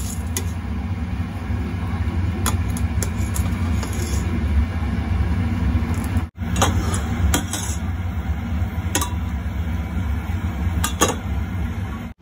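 Steady low kitchen hum under a pot of dashi stock heating on an induction hob, with light metal clinks of a mesh strainer against the stainless pot as the bonito flakes are strained out.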